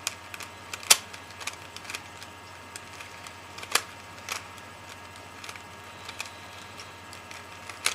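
A 3x3 Rubik's Cube being turned by hand: its plastic layers click and snap at an irregular pace, a few snaps much louder than the rest, over a faint steady low hum.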